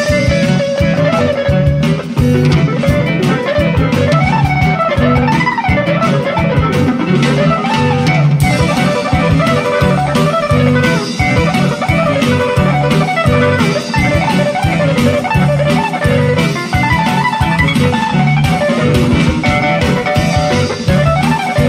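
Live instrumental band music: a lead melody with gliding, bending notes over a steady beat of drums and bass.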